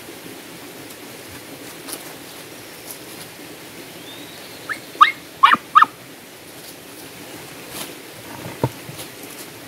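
A dog giving a quick run of four or five short, high yelps about five seconds in, over a steady rushing background. A single dull knock follows near the end.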